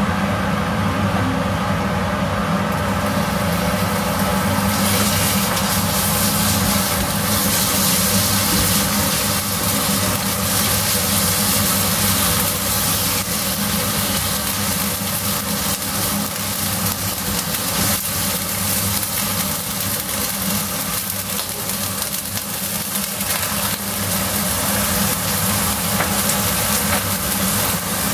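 Kitchen cooker hood fan running with a steady hum. From about three to five seconds in, a loud sizzling hiss joins it as diced beef fries in hot oil in a wok, and it keeps on.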